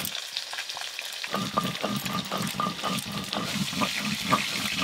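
Curved knife cutting raw bottle gourd into chunks: a quick run of crisp, crackly cuts through the firm flesh, starting about a second in.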